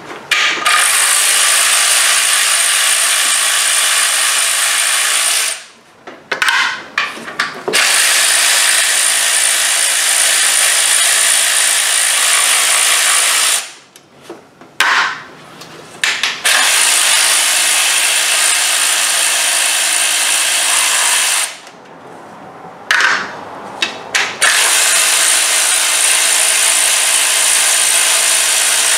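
Cordless power ratchet running with a steady whine as it spins out timing cover bolts, in four runs of about five seconds each, with brief knocks in the short pauses between them.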